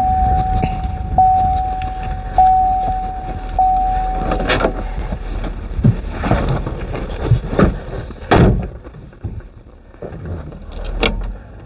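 A car's warning chime dinging about once a second, stopping about five seconds in, then a few sharp knocks and thumps, the loudest like a car door shutting, over a low steady rumble.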